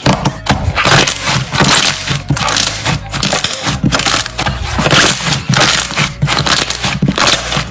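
Slime being squeezed and worked by hand, with dense, irregular crackling and popping from the air bubbles trapped in it: the slime has not been fully de-bubbled.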